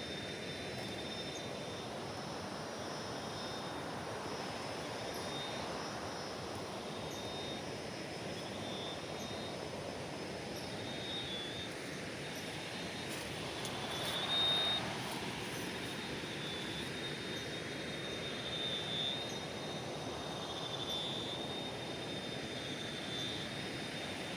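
Steady rushing of a river in flood, with a thin high insect-like drone and faint chirps above it.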